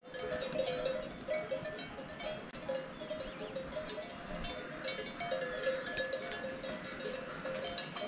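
Livestock bells on grazing water buffalo clanking unevenly, several bells at different pitches ringing on and off as the animals move their heads.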